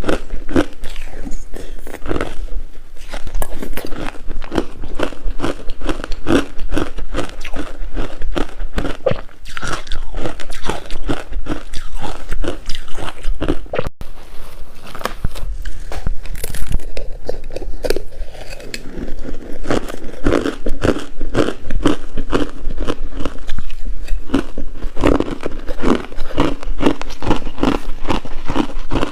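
Coarse-grained crunchy ice being bitten and chewed, a dense run of sharp crunches several per second with no pause.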